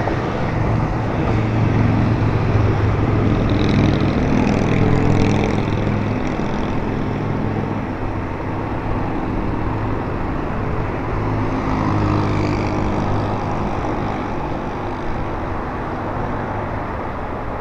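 Motorcycle engine running steadily under way, with a steady low hum and a rush of noise over it.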